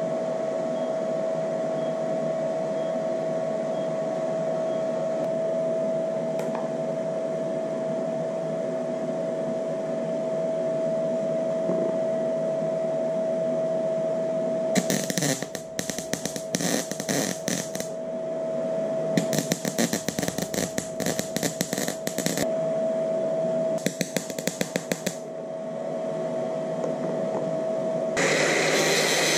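Wire-feed welder laying short beads on a steel coolant pipe: three spells of crackling arc, about three, three and one and a half seconds long, over a steady machine hum with a thin whine. Near the end an angle grinder starts and runs with a loud even rush.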